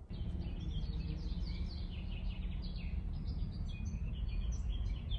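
Outdoor ambience: small birds chirping repeatedly over a steady low rumble.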